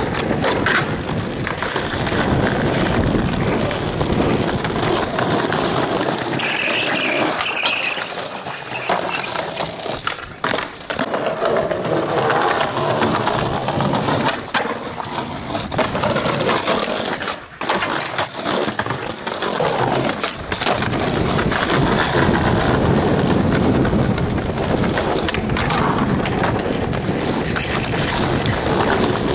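Skateboard wheels rolling over rough concrete, broken by several sharp clacks of board pops and landings, and a board grinding along a concrete ledge.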